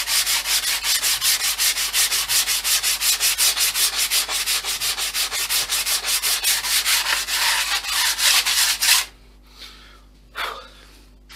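Sandpaper rubbed by hand over lightweight filler on a model jet's nose section, in quick, even strokes about five a second. The sanding stops about nine seconds in, and a short scrape follows as the part is set down.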